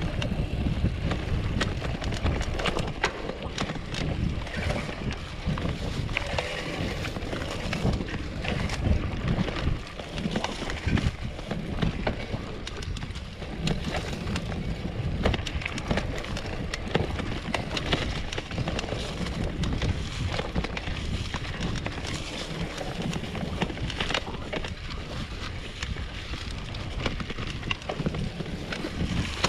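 Gravel bike riding over a bumpy grass single track: wind buffeting the handlebar-mounted camera's microphone, with frequent rattles and knocks from the bike jolting over the rough ground.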